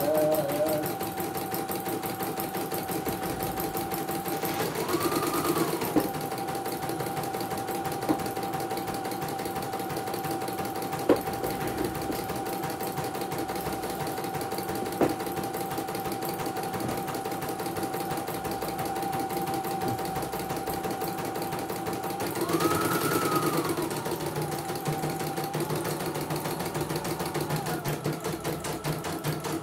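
CNY portable computerised embroidery machine stitching: a steady motor whine over rapid, even needle strokes, twice briefly rising in pitch, with a few sharp clicks. It runs smoothly after being repaired for a jerky, rough-running bobbin case.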